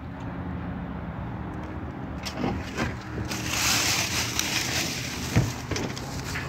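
Footsteps crunching on gravel, a few sharp steps, with a broad rush of noise in the middle over a steady low hum.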